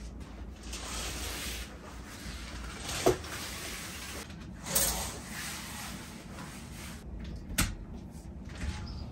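Curtains being pulled open by hand: the fabric swishes and the runners slide and clack along the curtain rail, with two sharp clacks, about three seconds in and about three-quarters of the way through.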